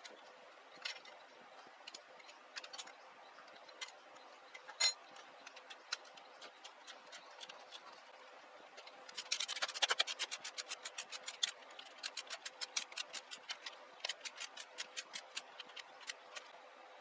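Hand-tool work on a motorcycle: scattered clicks and taps, then two runs of rapid, even ratchet-like clicking, about nine to ten a second, around ten seconds in and again near fifteen seconds, over a faint steady hum.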